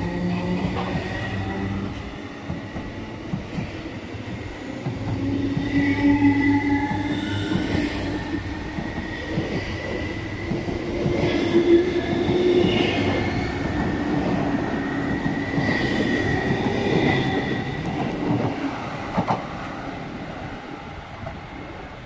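MTR East Rail line Metro-Cammell (MLR) electric multiple-unit train running on the rails: a steady rumble with a high, steady whine over it that swells several times, the whole sound fading toward the end.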